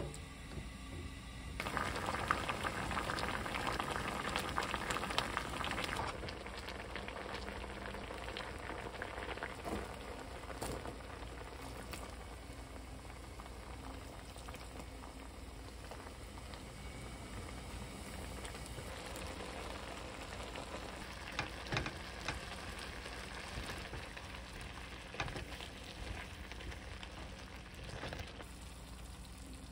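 Kabocha squash pieces simmering in water in a pan, bubbling steadily, louder for a few seconds about two seconds in. A few light taps of a spatula against the pan.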